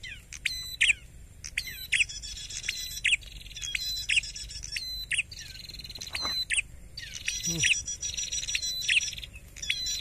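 Red-headed prenjak, a small songbird, singing energetically: sharp downward-sweeping chirps repeated about once a second, mixed with fast, high trills.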